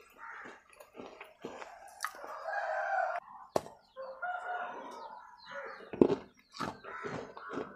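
Sharp crunching cracks of teeth biting into a small fired-clay diya lamp, the loudest about six seconds in. A bird calls loudly in the background, once about two seconds in and again about four seconds in.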